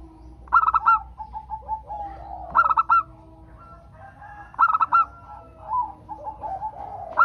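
Zebra dove (local perkutut) singing its repeated cooing phrase four times, about every two seconds: each a quick cluster of loud, high notes followed by a run of softer, lower coos.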